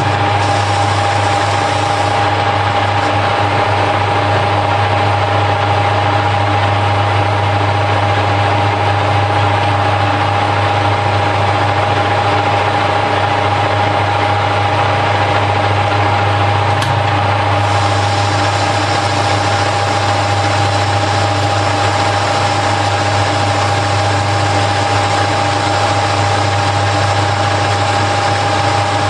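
Harrison L5 metal-turning lathe running steadily under power while turning bar stock down to diameter: a constant low hum with a steady whine above it.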